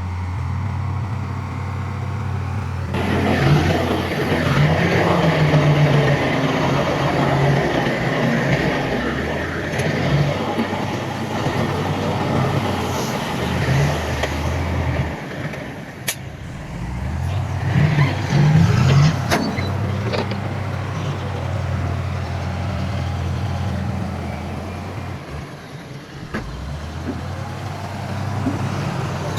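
Heavy diesel earthmoving machinery running steadily, its engine noise swelling about three seconds in as it works, with a few sharp clanks midway.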